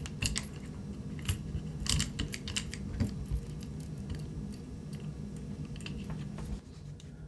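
Small metal clicks and taps of Colt 1911 pistol parts being handled as a tight barrel bushing is worked down over the barrel. The clicks are scattered through the first few seconds and then thin out.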